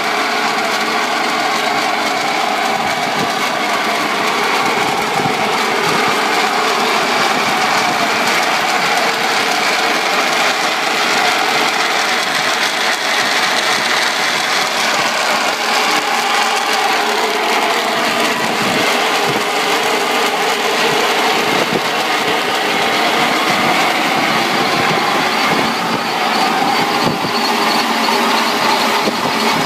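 Cooling tower fan drive running with loose belts and bad bearings: a loud, continuous mechanical noise with slowly wavering tones.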